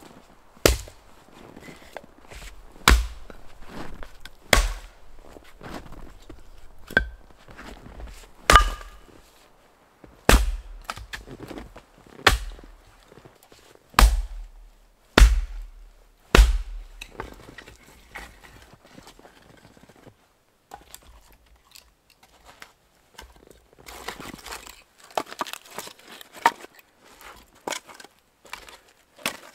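A hatchet splitting firewood rounds on a chopping block: about ten sharp chops, one to two seconds apart, through the first half. Later, lighter wooden knocks and clatter as split pieces are stacked.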